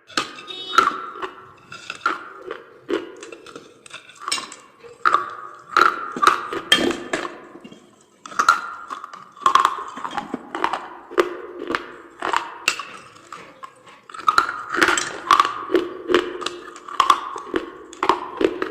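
Baked clay pot and saucer pieces being bitten and chewed, with a rapid, irregular run of sharp cracks and crunches.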